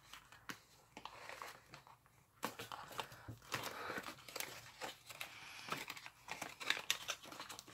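Origami paper being folded and pressed by fingers, crinkling and rustling in faint, irregular crackles that get busier about two and a half seconds in.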